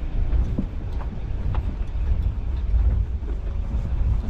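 A vehicle driving on a rough road, heard from inside: a steady low rumble with irregular knocks and rattles.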